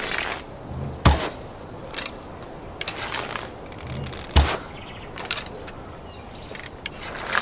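Bow-and-arrow shot sound effect, repeated: each shot is a brief rushing swell, then a low thump and a sharp snap with a quick high zing. There are two full shots about three seconds apart, a third begins near the end, and small clicks fall between them.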